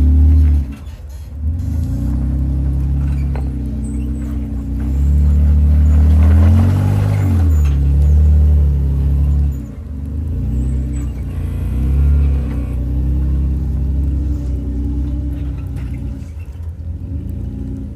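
Off-road vehicle's engine revving up and down again and again. It drops off sharply just after the start and again about ten seconds in.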